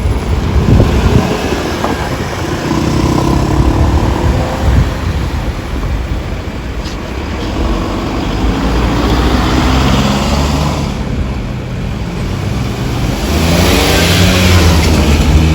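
Road traffic: cars and other motor vehicles driving past, engines accelerating, one passing louder near the end.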